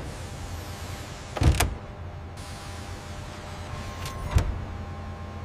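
Machinery in a hangar workshop: a steady electrical hum with a low rumble, broken by two short mechanical clunks about a second and a half in and again near four and a half seconds.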